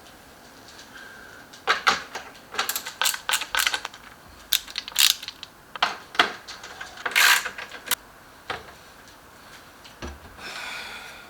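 Irregular clicks, knocks and a scrape from hand-assembling a flat-pack wooden pet crate: parts and hand tools being fitted together.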